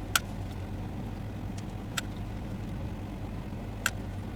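A steady low mechanical hum, like an engine or motor running, with three sharp clicks about two seconds apart.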